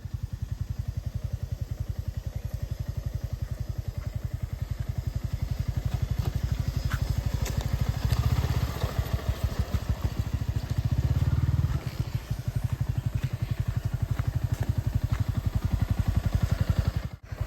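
Motorcycle engine running with a steady, even low-pitched beat. It swells louder twice in the middle and cuts off abruptly near the end.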